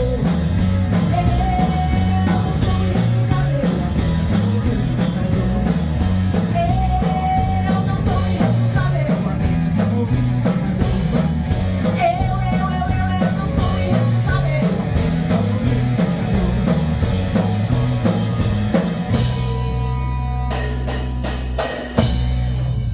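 Rock band playing live in a rehearsal room: drum kit, electric bass and electric guitar over a steady driving beat. About 19 seconds in the beat stops and a last chord rings out, and the song ends on a final crash.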